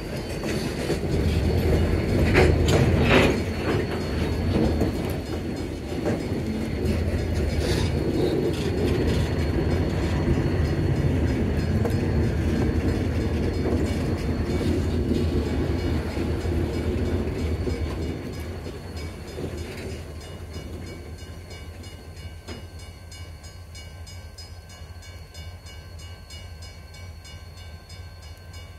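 Loaded log cars of a freight train rolling slowly past, wheels clacking over rail joints and rumbling. About eighteen seconds in the rolling sound drops away to a quieter steady rumble as the cars slow.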